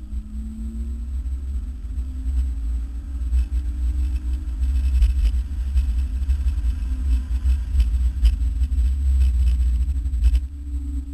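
Car engine and road rumble heard from inside the cabin on a track lap, with a heavy low drone and an engine note that climbs and falls. It grows louder through the middle and drops away about ten seconds in.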